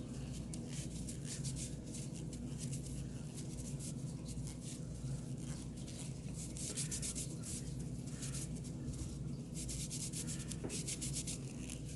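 Rapid, repeated scrubbing strokes over Glock 23 pistol parts with a solvent-soaked cleaning cloth or brush: a dry, scratchy rubbing that keeps going without a break.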